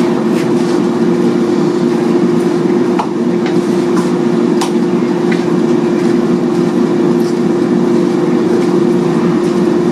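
A kitchen appliance fan runs with a steady hum under the sizzle of mixed vegetables frying in a pan, and a utensil clicks lightly a few times.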